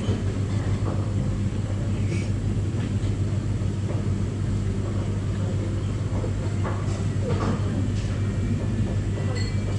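Steady low machine hum of a restaurant room, with a few faint clicks of chopsticks against a porcelain rice bowl.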